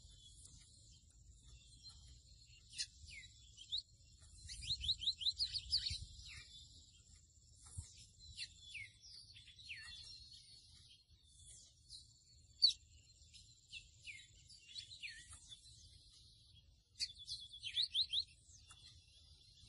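Mochuelo (pico de plata azul seedeater) singing: quick sliding whistled notes broken by fast buzzy trills, in two busier phrases, one about four seconds in and one near the end.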